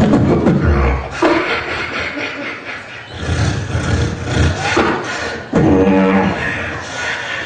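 Beatboxer performing into a handheld microphone, amplified: a continuous vocal beat of clicking snare and hi-hat sounds over bass kicks, with a deep bass note in the first second and hummed pitched tones about halfway through.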